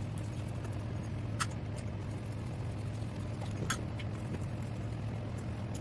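A steady low hum, with two short sharp clicks about a second and a half and nearly four seconds in, typical of small carburetor parts and tools being handled on the bench during a teardown.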